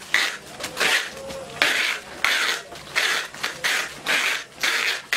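Plastic wrap being pulled off its roll and wound around a long pole, in short rasping pulls about one and a half times a second.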